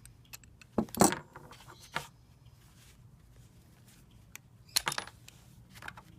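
Metal hand tools and the extracted screw being handled and set down: a few sharp metallic clinks and knocks, the loudest about a second in, more around two seconds and near five seconds.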